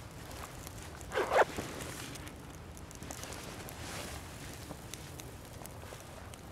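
Small leaf-and-twig fire crackling faintly with scattered light ticks. A brief, loud double crunch comes about a second in.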